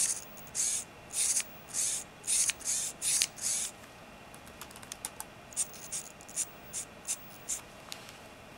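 SqueezeBlock haptic device, a small motor driving a rack-and-pinion gear inside an aluminium case, buzzing in short bursts as it is squeezed again and again: about two bursts a second for the first four seconds, then fainter, shorter ticks.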